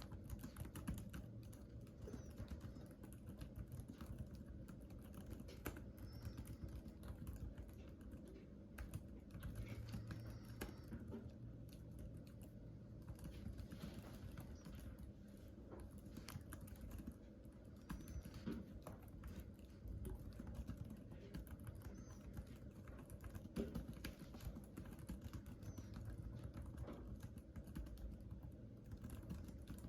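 Continuous typing on a computer keyboard: a fast, irregular stream of faint key clicks.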